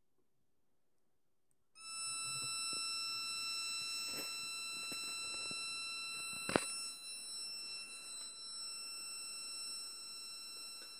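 Small speaker driven by a 555 timer astable multivibrator, sounding a steady high-pitched tone that starts suddenly about two seconds in and holds one pitch; it is the timer's rectangle-wave output, whose high part is longer than its low part. A sharp click about halfway through.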